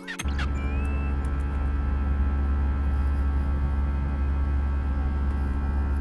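Steady cabin noise of an airliner in flight, heard from inside the cabin: an even rush of engines and airflow over a deep low rumble.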